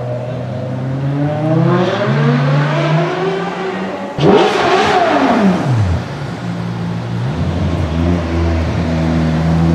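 Ferrari 599 GTO's V12 revving. Its pitch climbs over the first two seconds, then a sudden loud rev about four seconds in falls away over a second and a half. It then settles into steady, low running.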